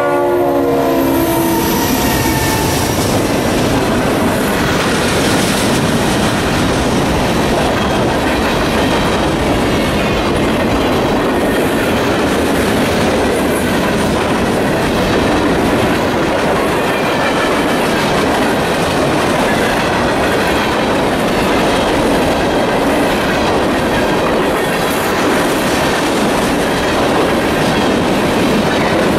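A locomotive horn chord ends in the first second or two. Then a long freight train rolls past, a steady rumble and clatter of the cars' wheels over the rail joints.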